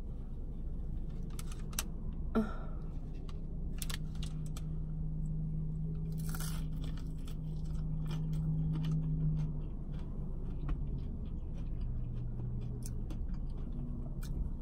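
Close chewing and crunching of crunchy fast food, a scatter of short crackly bites over a steady low hum.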